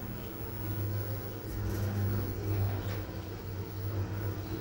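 An Otis Regen elevator car travelling down the shaft, heard from inside the car as a steady low hum with a few faint ticks.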